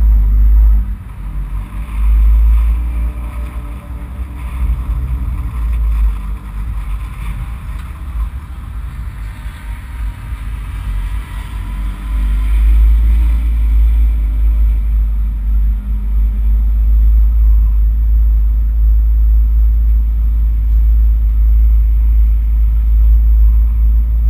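Race car engine running at low speed, a deep steady rumble heard through a bonnet-mounted camera, growing louder and steadier about halfway through.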